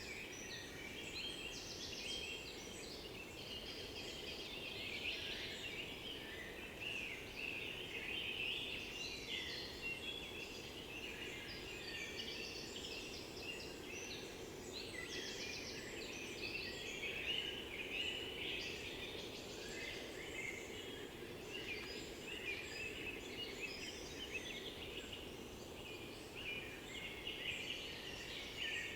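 Songbirds of the oak-beech forest singing, many short overlapping calls and phrases at once, over a steady low background hum.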